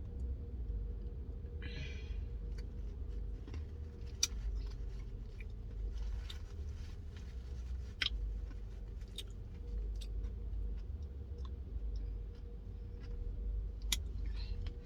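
Someone chewing, with scattered sharp clicks and a short hiss about two seconds in, over a steady low rumble and a faint steady hum.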